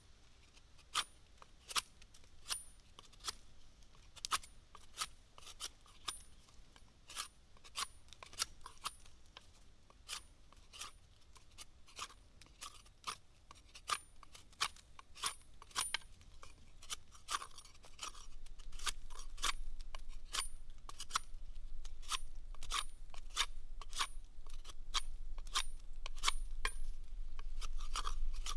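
A large knife blade shaving bark off a thin stick in short repeated strokes, each stroke a sharp scrape, about one or two a second. A low rumble joins about two-thirds of the way through.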